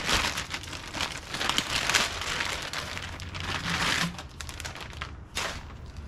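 Clear plastic bag crinkling and rustling as a new coolant expansion tank is pulled out of it and handled. The crinkling is dense for about four seconds, then thins out, with one last short burst near the end.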